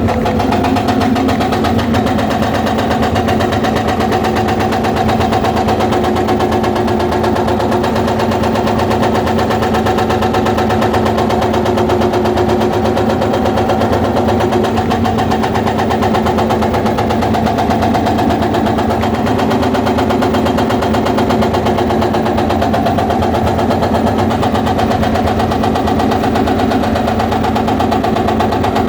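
Excavator's hydraulic breaker hammering stone in a rapid, steady stream of blows over the excavator's running diesel engine.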